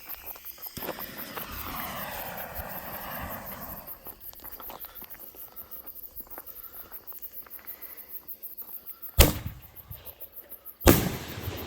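A 60-gram canister firework shell fires from its mortar tube about nine seconds in with a sharp boom, then bursts in the air about a second and a half later with a louder bang and a trailing rumble. A hiss comes in the first few seconds, and crickets chirp throughout.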